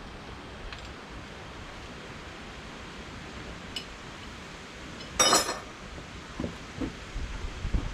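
Metal parts and tools being handled in a workshop: a few faint clicks, then one sharp metallic clank with a brief ring about five seconds in, followed by a few softer knocks.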